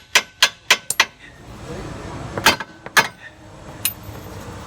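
Hammer blows on steel suspension parts: a quick run of about four strikes a second for the first second, then two more ringing blows about half a second apart, as the ball joint and control arm are worked into line against the sway bar's pull.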